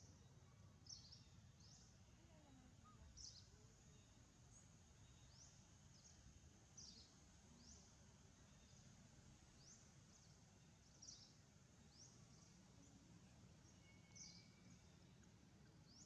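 Near silence: a faint low background rumble, with short, high bird chirps about every second.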